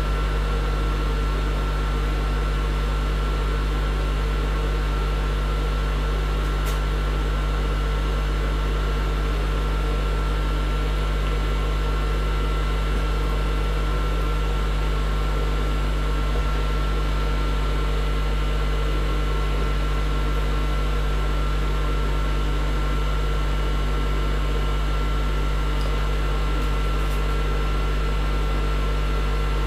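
Steady mechanical hum, deep and unchanging, with a constant thin high whine above it.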